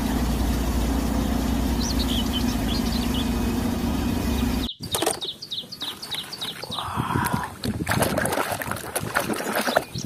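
Large Caterpillar crawler bulldozer's diesel engine running steadily under load, which cuts off abruptly about five seconds in. Then birds chirp, against the clicks and knocks of wet plastic toys being handled in a plastic basket.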